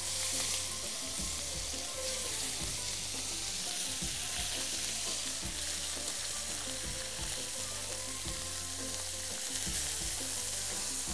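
Whole safi (rabbitfish) frying in hot oil in a shallow pan: a steady sizzle.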